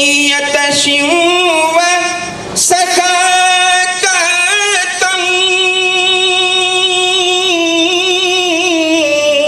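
A man singing a naat unaccompanied into a microphone through a PA system, drawing out long melismatic notes with wavering turns. There is a short break for breath a little over two seconds in, then one long note held from about the middle to the end.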